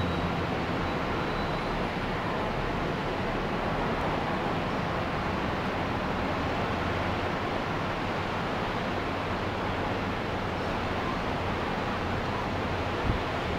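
Surf on a beach: breaking waves making a steady, even wash of noise, with a small click near the end.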